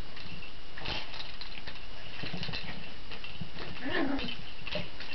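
Border terrier puppy scrabbling and pawing at a cat's scratching post, with scuffing and scattered knocks, the sharpest about a second in, and a short puppy sound about four seconds in.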